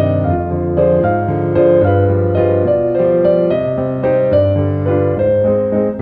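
Background piano music: a flowing run of notes over a low bass note that recurs every couple of seconds.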